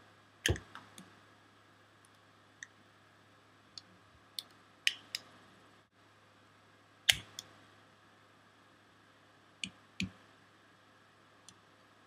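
Sharp metallic clicks and snaps from a Leatherman Super Tool 300 multi-tool as its implements are opened and folded. There are about a dozen irregularly spaced clicks, the loudest about half a second in and about seven seconds in, over a faint low hum.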